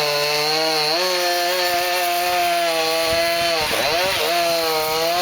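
Two-stroke chainsaw running high up in the tree while the trunk is cut down in small sections. Its pitch stays steady, then dips and climbs back a few times about three and a half to four and a half seconds in.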